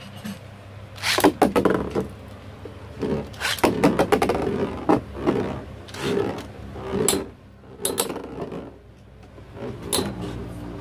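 Two battle tops clashing in an arena: repeated clusters of sharp clattering, clinking hits, starting about a second in and recurring every second or two.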